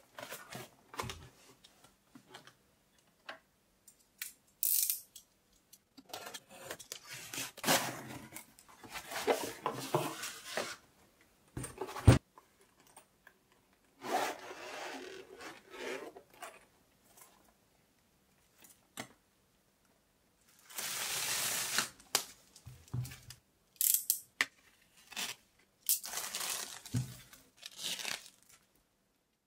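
Packaging being torn open and handled: irregular bursts of tearing and crinkling with scattered light clicks and knocks, and one sharp knock about twelve seconds in.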